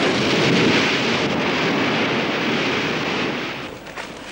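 Rushing sea water and wind as a sailing ship's bow pushes through choppy waves. The noise fades away about three and a half seconds in, with a short knock near the end.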